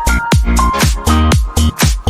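Electronic dance music with a steady kick-drum beat and a short-note synth melody.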